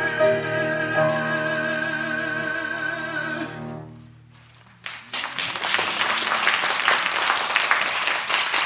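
A tenor holds the final note of a Neapolitan song with vibrato over cello and piano, ending about three and a half seconds in. After a brief hush, the audience breaks into applause.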